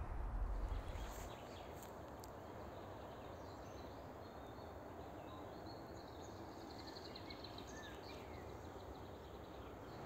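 Faint birds chirping over a steady low background hum, with a quick trill of rapid notes a few seconds in. A low rumble in the first second or so.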